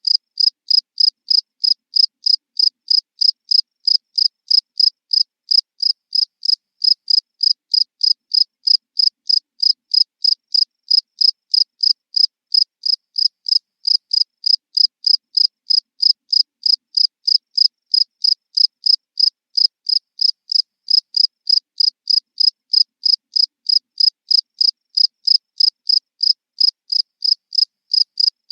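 A single cricket chirping close up: short high chirps repeated evenly, about three a second.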